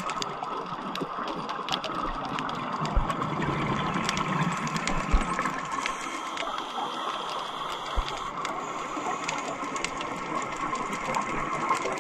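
Underwater ambience around scuba divers: a steady hiss and crackle of many small clicks, with a few soft low thumps.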